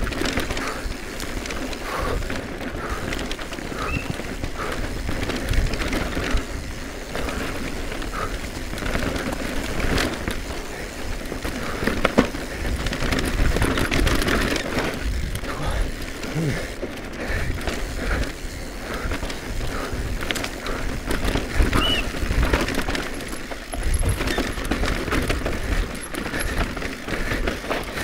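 Cube Stereo Hybrid e-mountain bike ridden fast down a rough dirt trail: tyres rolling over dirt, stones and roots, with the bike rattling and sharp knocks from impacts over a continuous low rumble.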